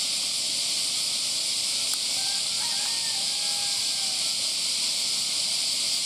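Steady, loud, high-pitched hiss of a summer cicada chorus, with a few faint short tones about two to four seconds in.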